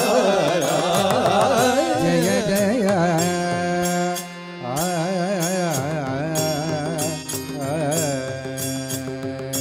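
Carnatic devotional bhajan music: a wavering, heavily ornamented melodic line with held notes partway through, kept in time by regular strikes of small hand cymbals.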